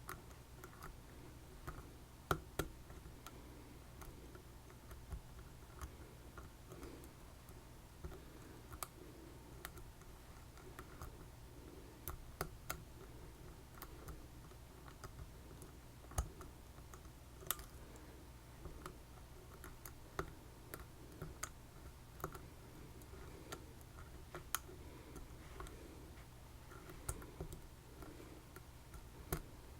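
Lock picks clicking and scraping inside an ASSA Twin 6000 lock cylinder as the pins are worked: faint irregular light clicks with a few sharper ticks, over a steady low hum.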